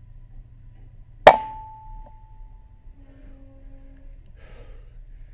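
A single air rifle shot about a second in: a sharp crack followed by a ringing tone that fades over about a second and a half. Near the end, a short flurry of wing flaps from the shot collared dove.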